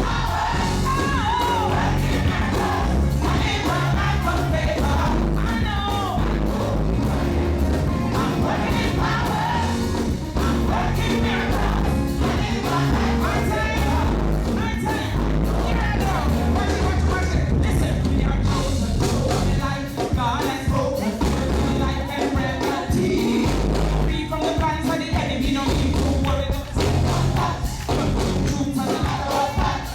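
Live gospel worship music: a band with a heavy, steady bass, with singing over it.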